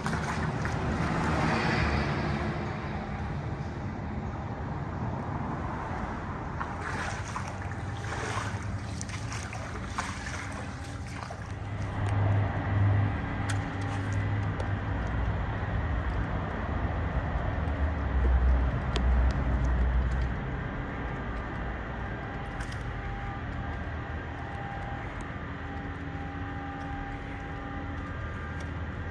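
Low, steady rumble of road traffic heard inside a concrete culvert, swelling louder twice as vehicles pass, about twelve seconds in and again around eighteen to twenty seconds. Gusts of wind on the microphone come in the first few seconds.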